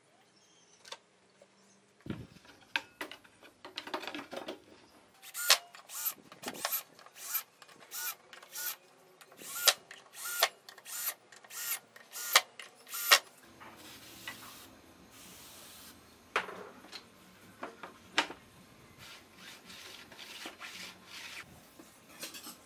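Cordless drill driving screws into wood, with a run of sharp, evenly spaced clicks and knocks and a few seconds of steady motor whir in the middle.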